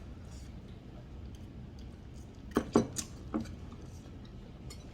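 A few short clinks of a spoon against a soup bowl, bunched together a little past halfway, over a low steady room hum.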